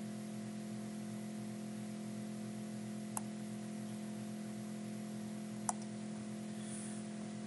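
Two single computer-mouse clicks, one about three seconds in and another near six seconds, over a steady low hum.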